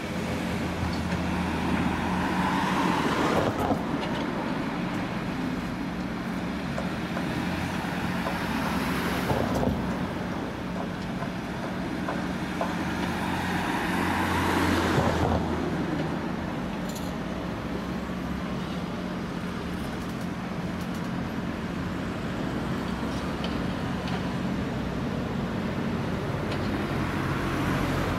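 Tracked excavator's diesel engine running steadily at work, swelling louder three times as the hydraulics take load while the arm digs and swings.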